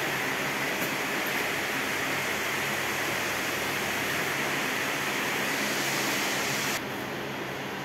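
A steady rushing hiss. Near the end its upper part drops away abruptly and it turns a little quieter.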